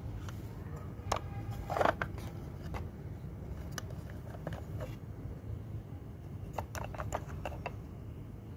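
Light clicks and taps of small plastic toys being handled, spread irregularly with a quick cluster near the end, over a steady low hum. The loudest is a brief pitched squeak-like sound a little under two seconds in.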